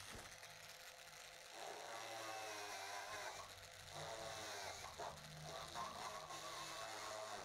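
Electric drill running, its bit boring into a bumper repair patch of melted plastic binder and metal mesh; the motor's pitch wavers as the bit works under load.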